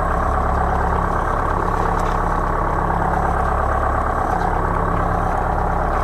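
Charter fishing boat's engine idling, a steady low hum that does not change, under a constant rush of wind and water.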